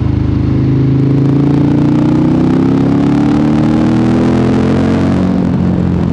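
KTM motorcycle engine under way, pulling up steadily through the revs for about four seconds, then easing off near the end. It is picked up by a microphone in the rider's backpack.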